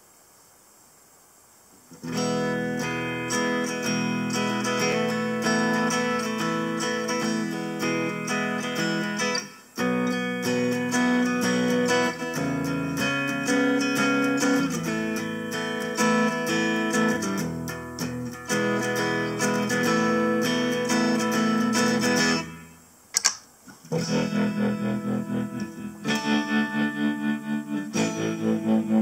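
Electric guitar played through Harley Benton DNAfx GiT multi-effects presets: chords ring out from about two seconds in. After a short break near the end, the chords come back pulsing rapidly and evenly in level.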